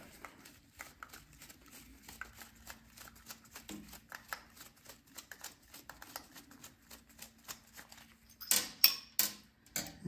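Screwdriver working the brass main jet out of a snowblower carburetor: small metal clicks and ticks of the blade turning in the jet, with a few louder clicks and knocks about eight and a half seconds in.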